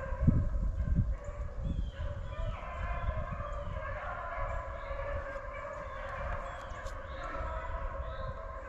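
A pack of beagles baying as they run a rabbit, their voices blending into a steady, overlapping chorus with a few sharper yelps rising out of it. A few footsteps thump through dry brush in the first second or so.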